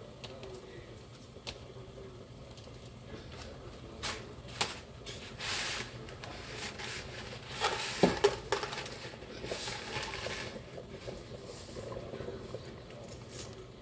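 Dry spaghetti being handled and dropped into a stainless stockpot of boiling water: scattered clicks and rattles of the stiff strands and the cardboard pasta box, with a sharper clatter about eight seconds in.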